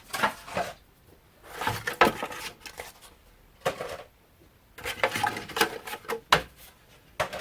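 Thin metal shim stock crinkling and clattering in several short, irregular bursts as it is handled and worked into shape.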